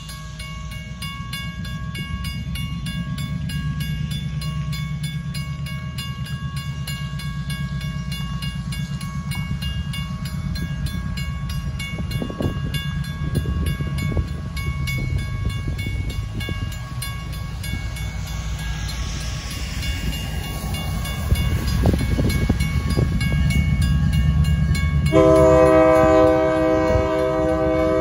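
Railroad crossing bell ringing rapidly over the low rumble of an approaching diesel locomotive, which grows louder. Near the end the locomotive blows its horn, a chord held for a few seconds.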